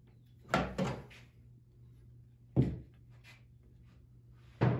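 Melamine boards and bar clamps being handled and set against a plywood workbench: four wooden knocks, two close together about half a second in, one midway and one near the end.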